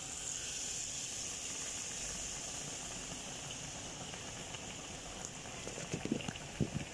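Batter-coated egg (pantoa pitha) deep-frying in hot oil, with a steady bubbling sizzle that swells as the batter goes in. Sharp crackling spatters start near the end.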